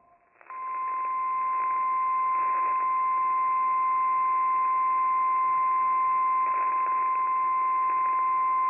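NOAA Weather Radio warning alarm tone: a single steady tone of about 1050 Hz that starts about half a second in and holds, over faint radio hiss. It heralds a tornado warning broadcast.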